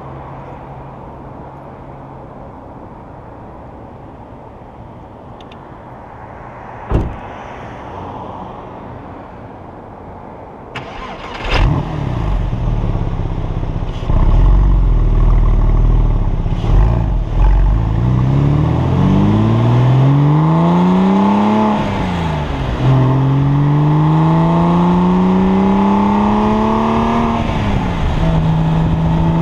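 2003 Porsche 996 Carrera's 3.6-litre flat-six with "Gundo-Hack" mufflers, idling, then pulling away hard about a third of the way in. The exhaust note climbs in pitch through two gears, dropping sharply at each upshift, and then settles into a steady cruise.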